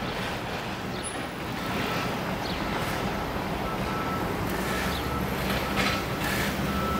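Steady city street traffic noise, with the low, even hum of a nearby heavy vehicle's engine running.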